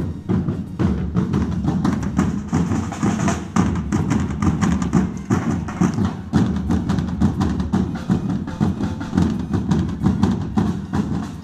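A corps of drummers beating medieval-style parade drums with sticks, playing a fast, steady rhythm of many sharp strokes together.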